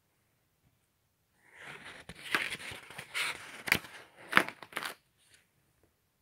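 Paper pages of a spiral-bound sketchbook being handled and turned: rustling and crinkling with a few sharp crackles, starting about a second and a half in and lasting about three seconds.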